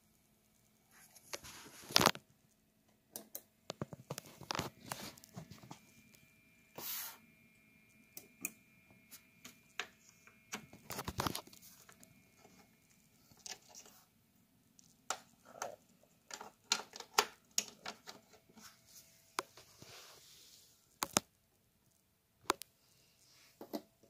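Irregular clicks, taps and short rustles of hands handling a plastic humidifier close up, the loudest about two seconds in.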